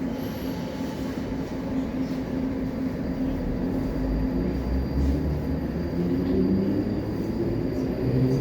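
A 'Baltiets' metro train running, with a low rumble of wheels on rail and the whine of its electric traction drive. It grows gradually louder, and the whine starts to rise in pitch near the end as the train gathers speed.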